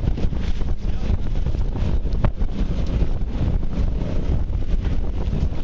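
Wind buffeting the microphone over the steady drone of a boat's engine under way, with one sharp click about two seconds in.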